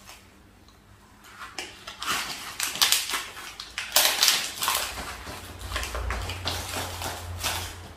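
Chocolate bar wrapper and foil crinkling as it is handled and unwrapped, in irregular crackles that start about a second and a half in. A low rumble sits under it in the second half.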